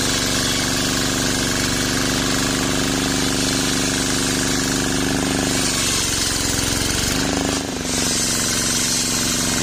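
Engine-driven circular sawmill blade ripping a sengon wood beam: a loud, steady machine hum with a high hiss over it. Past halfway the pitch wavers, and about three-quarters through the sound dips briefly before the blade runs on at full speed.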